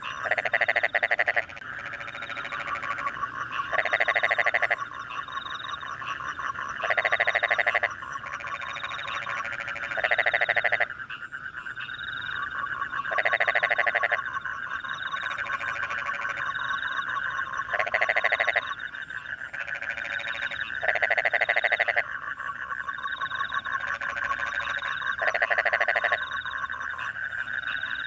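Rice-field frog chorus after rain: a steady mass of frogs calling, with a louder frog's rapid croaking call of about a second repeating every three to five seconds, and crickets chirping faintly behind.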